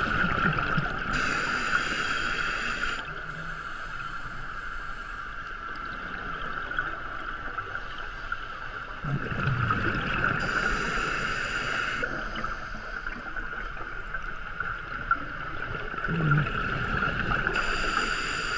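Scuba diving regulator breathing heard underwater: a hissing inhale, then a rush of exhaled bubbles, repeating about every eight seconds, over a steady high hum.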